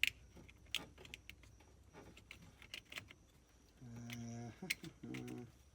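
Scattered light clicks and taps of plastic steering-column parts being handled and fitted, with a short low hum from a man's voice about four seconds in and again near the end.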